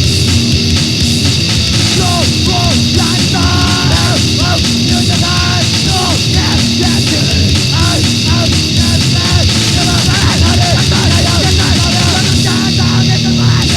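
Loud, distorted grindcore/power-violence band music from a lo-fi demo-tape recording: a dense, unbroken wall of sound, with wavering high lines running over it from about two seconds in.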